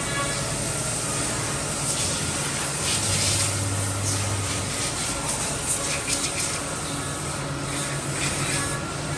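CNC mortiser and tenoner machine running: a steady machine noise with a strong hiss over a low hum, and a few faint clicks in the middle.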